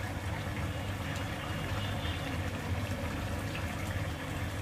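Fish and vegetable curry simmering in an aluminium karahi over a gas burner: a steady low hum with soft bubbling and a few faint pops.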